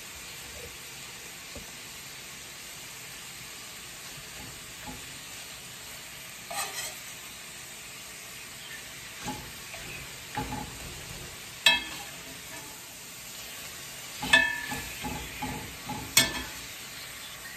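Beef slices sizzling steadily in a stainless steel frying pan, while a metal ladle stirs and turns the meat. From about six seconds in, the ladle strikes the pan's rim and sides in a few sharp, ringing clinks, the loudest in the last third.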